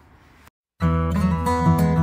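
Background music cuts in about a third of the way through, after a brief dead silence; before it there is only faint room tone.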